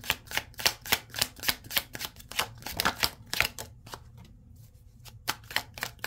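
A deck of tarot cards being shuffled overhand by hand, the cards flicking and tapping together in quick strokes about four a second. The shuffling stops about three and a half seconds in, then a few more strokes come near the end.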